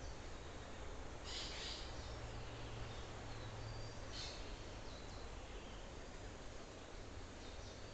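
Forest ambience: a steady soft hiss with birds calling now and then, a few short harsh calls about a second in, near the middle and near the end, and faint high chirps between them.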